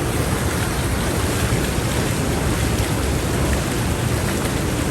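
Steady rushing of running water, as from spa hydrotherapy jets or a shower, with an even hiss.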